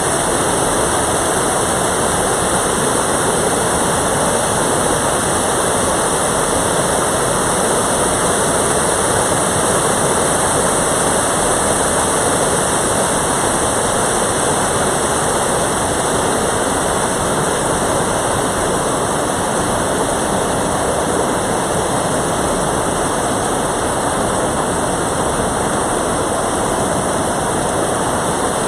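Mountain valley stream's water rushing, a loud, steady, unbroken rush.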